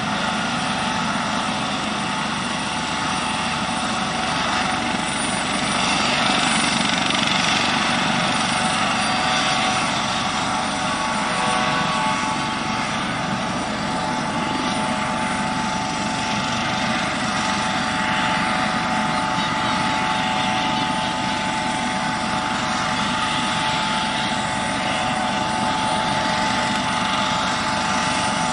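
Helibras HM-1 Pantera (Eurocopter AS565 K2 Panther) helicopter running steadily: a constant turbine whine over rotor noise.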